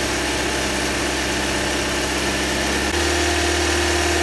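2009 Toyota Corolla's 1.8-litre 2ZR-FE four-cylinder engine running at a raised idle of about 2000 rpm, with a steady hiss over it, while SeaFoam Spray cleaner is fed into the intake. About three seconds in, the engine note shifts as the revs hunt up and down while the engine ingests the cleaner.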